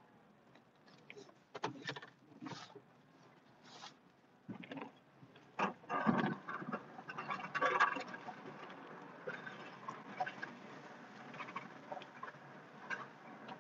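A pickup with a Western WideOut XL plow pushing snow, heard from inside the cab: irregular clunks and rattles over a rushing, scraping noise. The noise grows louder for a few seconds about halfway through.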